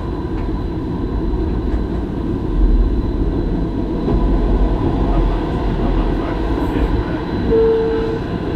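Stadler Variobahn light-rail tram running along the track, heard from the driver's cab as a steady low rumble. Near the end there is one short, steady beep.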